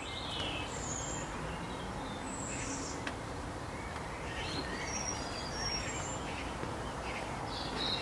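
Outdoor ambience: scattered short bird chirps over a steady background hiss.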